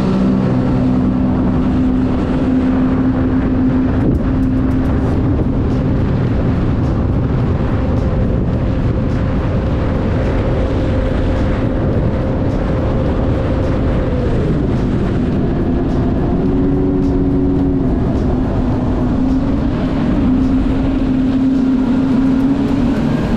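Supercharged Rotax three-cylinder engine of a 2015 Sea-Doo GTX iS Limited 260 personal watercraft running at high speed under way, over a heavy steady rush of wind and water. The engine holds a steady pitch, falls off about two-thirds of the way through, then settles at a new steady pitch.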